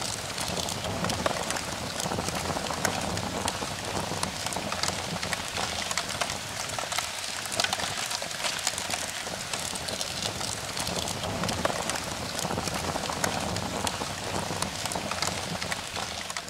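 A steady rain-like patter: an even hiss dotted with many small ticks, fading out near the end.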